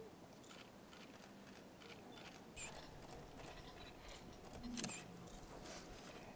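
Quiet outdoor hush with faint scattered clicks and small rustles, two of them a little sharper a bit past halfway, followed by a brief low sound.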